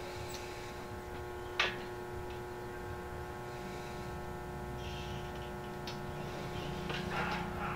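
A steady electrical hum made of several tones, with one sharp click about one and a half seconds in, a few fainter ticks, and scratchy noise rising near the end.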